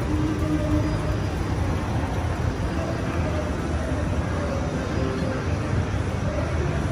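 Mitsubishi escalator running, a steady low mechanical hum from the moving steps, with faint voices in the background.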